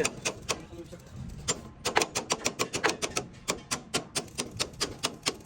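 Rapid, even hammer taps on metal, about five strikes a second, beginning about a second and a half in: typical of panel-beating work on a damaged truck cab.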